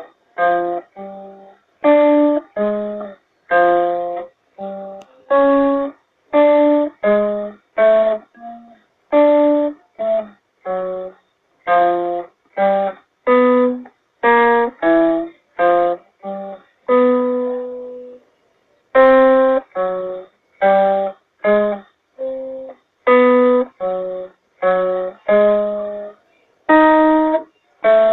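Acoustic guitar picking a riff of single notes, about two to three a second, each note ringing briefly and then cutting off, with one longer held note about halfway through.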